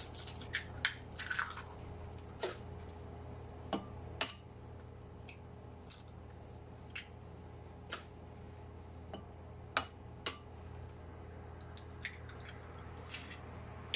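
Eggs cracked one after another on a glass bowl: a series of sharp taps and cracks of shell, with soft squishes as the eggs drop into the bowl.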